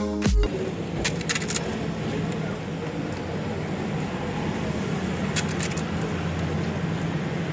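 Background music cuts off just after the start, leaving steady street noise with passing traffic and a low hum. Light crisp clicks come in two short clusters, about a second and a half in and again past five seconds.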